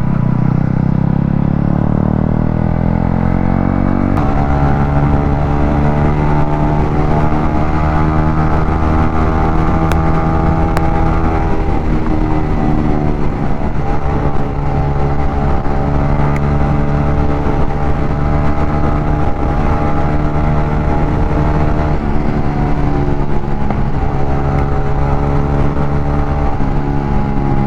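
Motorcycle engine pulling under way: its pitch climbs over the first few seconds, holds steady, drops about twelve seconds in, then carries on at a steady cruise.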